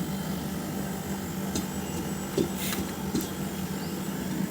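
Split air conditioner's outdoor unit running with a steady hum from its compressor and fan. A few light clicks and one short hiss a little past halfway are heard over it.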